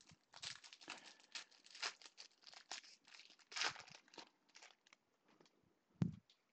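Foil baseball card pack being torn open and crinkled by hand: a quick run of crinkles and tearing that lasts about four seconds. About six seconds in there is one dull thump, the loudest sound.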